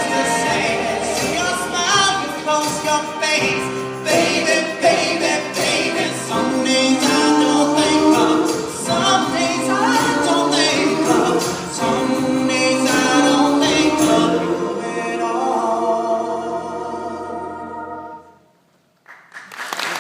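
Live singing with choir-like vocal harmony, ending on a held final chord that fades out near the end. After a moment's silence, applause starts.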